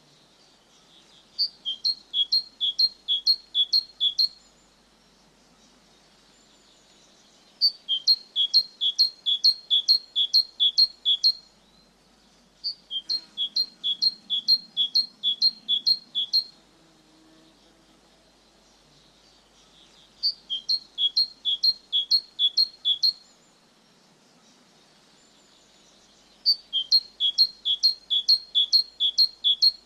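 A songbird singing the same phrase over and over: eight to ten sharp, high notes alternating between two pitches, each phrase about three seconds long. There are five phrases with pauses of a few seconds between them.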